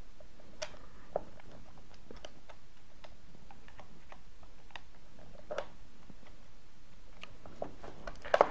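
Scattered small clicks and scrapes of a screwdriver working the terminal screws of a plug socket faceplate as the cables are loosened to be swapped over, with a sharper cluster of clicks near the end.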